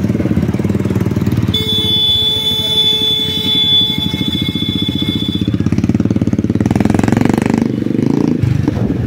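Several motorcycle engines running as a group of motorcycles rides along together, heard from on board one of them. A steady high-pitched tone is held for about four seconds, starting about a second and a half in.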